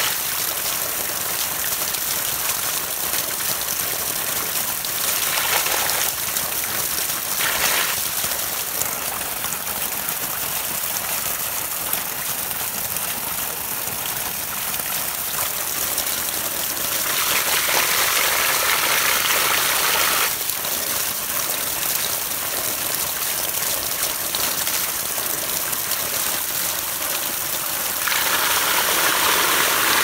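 Strong jet of water gushing steadily from a pipe outlet into a concrete tank. It splashes louder each time hands are pushed into the stream, most of all a few seconds past the middle and near the end.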